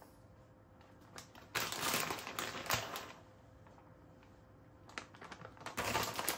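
Plastic bag of grated cheese crinkling as it is shaken and squeezed to pour the cheese out. It comes in two bursts, one starting about one and a half seconds in and another near the end, with a few light clicks between.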